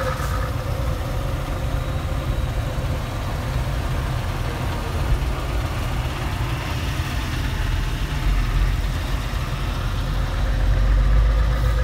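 Scania 770S 16.4-litre V8 diesel truck running alongside on the highway through a straight-piped exhaust: a deep, steady rumble mixed with road noise. It grows louder near the end.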